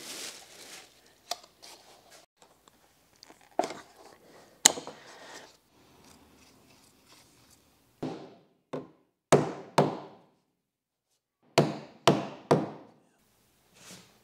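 A hammer striking a wooden board. First a few scattered knocks, then two quick runs of three or four blows, each with a short ringing decay. A plastic bag rustles at the very start.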